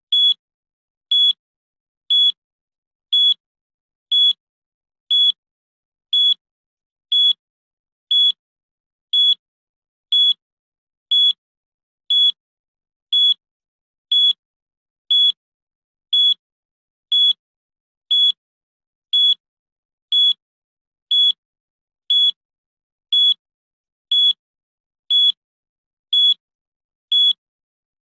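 Countdown timer's electronic beep: one short, high-pitched beep every second, marking off each second of the countdown.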